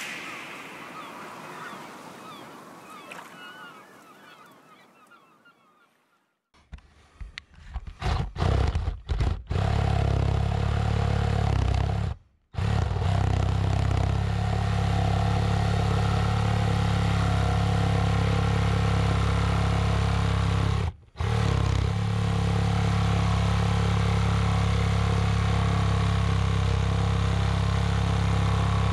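Background music fading out, then a handheld power drill boring into house siding with dust flying. It starts in a few short trigger pulses, then runs steadily under load with two brief pauses.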